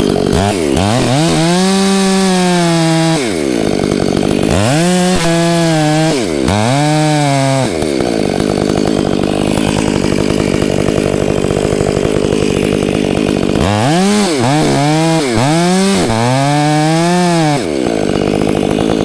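Gas chainsaw running and cutting into a maple trunk that is under heavy tension, as part of felling the tree. The engine pitch rises and falls repeatedly in several swells, with a steadier stretch of cutting in the middle.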